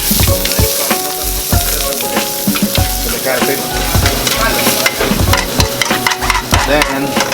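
Shallots and garlic sizzling in olive oil in a frying pan, with frequent clicks and scrapes of a utensil stirring them against the pan.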